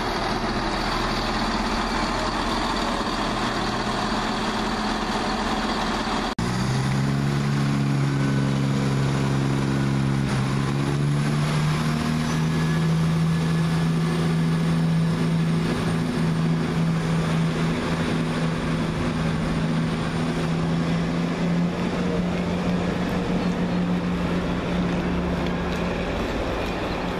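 Class 170 Turbostar diesel multiple unit's underfloor diesel engines under power: a steady rumble for the first few seconds, then, after an abrupt break, a deep engine drone that rises in pitch a little before the halfway point and holds steady as the unit pulls away.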